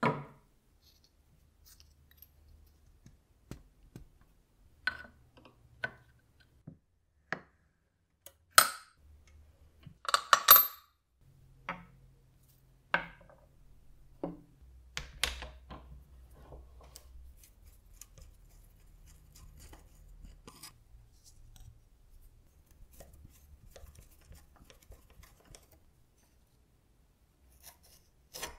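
Rusty metal parts of an antique slicer being handled and set down on a table: scattered metal clinks and knocks, the loudest ones about a third of the way in.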